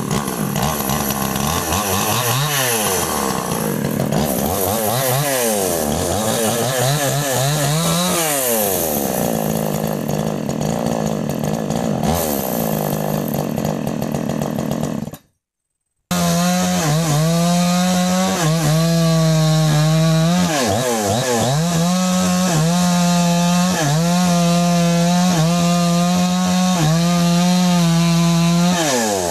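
Two-stroke chainsaw revving up and down again and again in the first half. After cutting out for about a second midway, it runs at high, steady revs while cutting wood, its pitch sagging briefly about once a second under the load.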